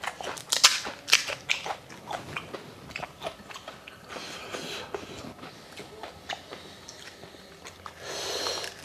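Crunching and chewing of crisp fried fuchka (pani puri) shells: a string of sharp crackles and bites, with a brief hiss near the end.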